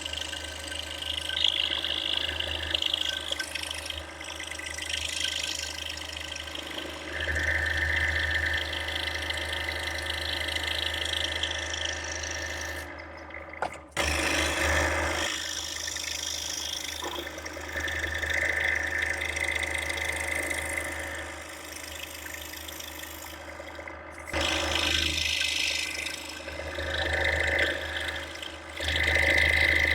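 Scroll saw running with a fine spiral blade, cutting through a stack of pine and thin bird's eye maple; the cutting noise rises and falls as the blade works around the interior cuts, over a steady motor hum. It drops out briefly about halfway through, then starts again.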